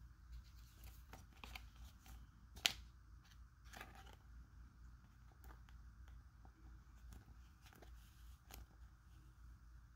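A trading card being slid into a thin clear plastic sleeve: faint crinkling and rustling of the plastic with scattered soft clicks, and one sharp click about two and a half seconds in.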